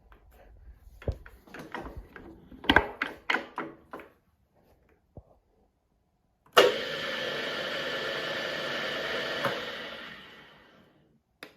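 A few clicks and knocks of the controls being set, then the HBM 40-H drill-mill's three-phase motor and oil-bathed geared head start abruptly and run at a steady pitch for about three seconds. After a click it is switched off and winds down over a second or so.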